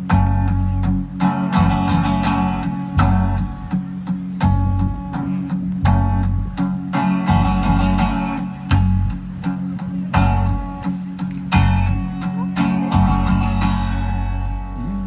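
Guitar strummed, playing the opening chords of a song with no singing yet.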